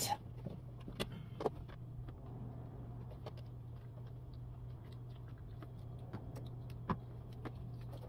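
Faint handling noise of speaker wire being fished through a car's rubber door-boot grommet: a few light clicks and taps over a steady low hum.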